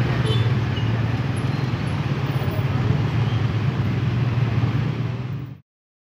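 Steady road-traffic noise of idling motorcycle and car engines, a low hum with street noise over it, cut off abruptly about five and a half seconds in.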